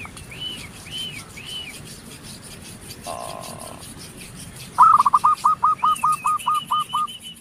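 Birds calling: a string of short high arched notes about twice a second, then, about five seconds in, a loud run of about a dozen quick falling notes with a fast high trill over its end.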